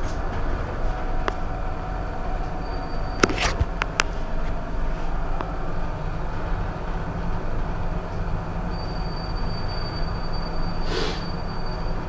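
Steady rumble and hum of a lift car travelling, with a few sharp clicks about three seconds in and a thin high-pitched whine over the last few seconds.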